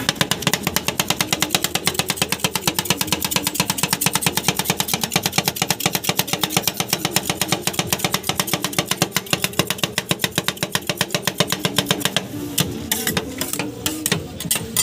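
Two metal spatulas chopping ice cream on a stainless-steel cold plate: rapid, even metal-on-metal clacking, several strikes a second. About twelve seconds in it slows to scattered taps and scrapes.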